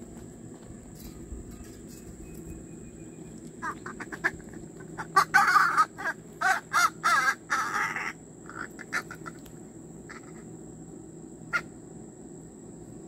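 A crow calling: a run of harsh calls, loudest and packed closest together in the middle, trailing off into a few softer ones. A single sharp click comes near the end.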